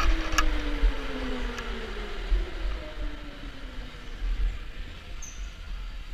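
Electric go-kart slowing down after the finish: its motor whine falls steadily in pitch over the first two or three seconds, with a few sharp clicks near the start. A low rumble and hiss fade away after it.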